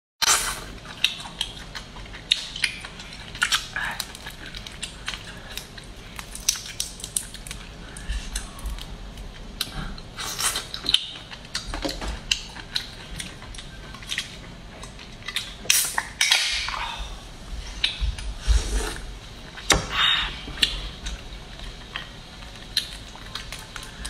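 Close-up eating of boiled crayfish: irregular crackles and clicks as the shells are cracked and peeled by hand, with sucking and chewing sounds at the mouth and a few longer, louder sucks.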